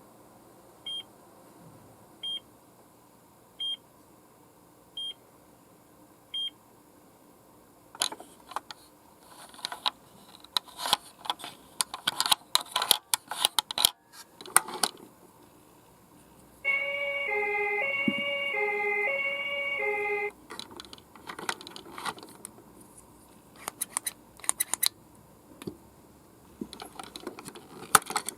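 Toy ambulance being handled, with plastic clicks and rattles, then its electronic siren sounding for about three and a half seconds: a repeating tone that steps up and down in pitch. It cuts off and the handling clicks resume. Near the start come five short electronic beeps about a second and a half apart.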